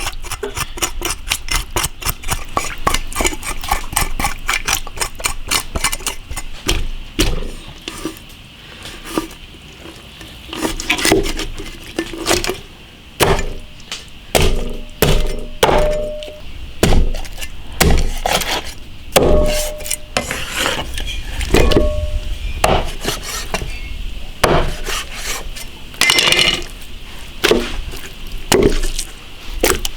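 Kitchen knife working on a large fish: quick, regular scraping strokes for the first few seconds, cleaning out the body cavity, then separate sharp knocks of the blade, a few of them with a short metallic ring.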